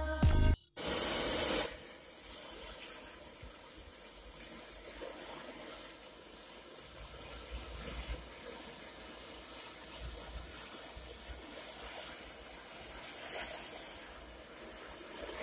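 A burst of hiss about a second in as a mass of match heads flares up, then a steady, fainter hiss of the matchstick figure burning, with a few faint pops.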